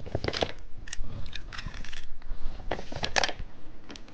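Plastic candy packaging being handled and opened: irregular crinkles, small clicks and snaps.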